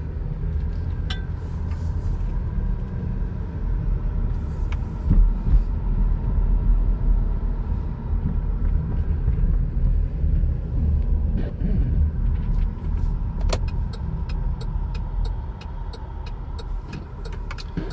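A car driving, with a steady engine and road rumble heard from inside. For the last few seconds, sharp clicks tick evenly about two to three times a second.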